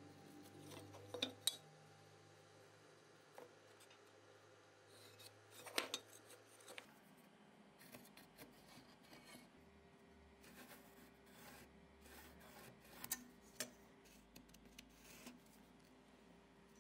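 Faint scratching of a carpenter's pencil drawing along a pine block, with a few light clicks and taps as a metal square and steel ruler are set against the wood.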